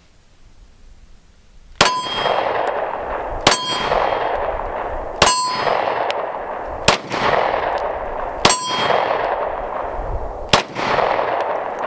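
Six pistol shots from a 9mm PSA Dagger Compact, one every one and a half to two seconds, each followed by the clang and long ring of a steel target being hit.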